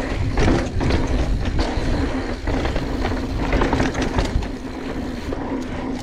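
Polygon Siskiu N9 mountain bike descending a dry dirt trail at speed: knobby tyres rolling and scrabbling over loose dirt, leaves and rock, with the bike rattling and knocking over bumps under a steady low rumble.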